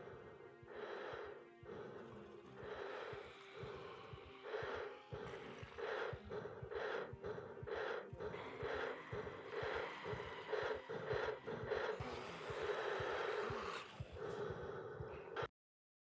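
Heavy, raspy breathing through a gas mask, each breath a noisy rush with a hollow, boxy tone. The breaths start slow and quicken to about two a second from about six seconds in, then stop abruptly near the end.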